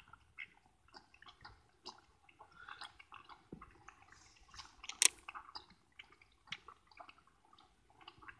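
A calf sucking milk from a nipple bottle: irregular wet slurping and smacking at the nipple, with one sharp smack about five seconds in.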